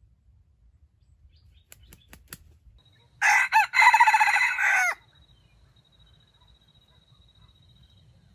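A junglefowl rooster crowing once, a short, clipped crow of under two seconds with a brief break after its opening note.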